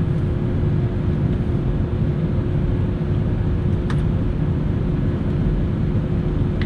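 Airbus A320neo running with a steady low rumble and an even, constant hum; a faint click about four seconds in.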